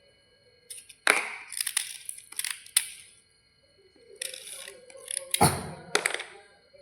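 Brittle white slate bars crunching, with sharp cracks and crackle in two bursts, one starting about a second in and another around four to six seconds in, the loudest crack about five and a half seconds in.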